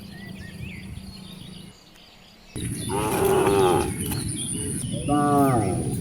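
Cows mooing: one call about two and a half seconds in lasting just over a second, then a shorter second call near the end, with faint bird chirps before the first.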